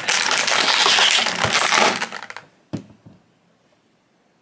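Thin clear plastic blister packaging crackling and crinkling loudly as toy figures are pushed out of it, for about two seconds. A single sharp click follows, then near silence.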